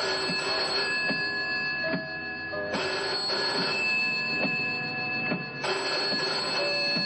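Eerie suspense film score: sustained high ringing tones over shifting low notes, with a slow low pulse about once a second and a swell of hiss every few seconds.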